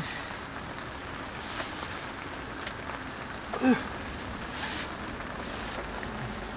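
Heavy rain falling steadily on a camping shelter, an even hiss with a few drip-like ticks. A short falling-pitched call sounds once a little past halfway.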